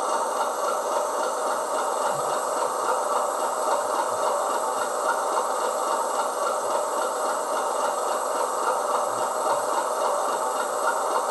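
Model-railway DCC sound file of a BR Class 30's Mirrlees diesel engine, recorded from a Mirrlees MB275T. The engine runs steadily with no change in speed and has little bass.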